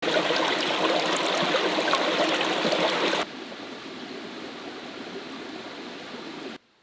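Steady rushing, trickling noise like flowing liquid. It is loud for about three seconds, drops suddenly to a quieter level, and then cuts off abruptly near the end.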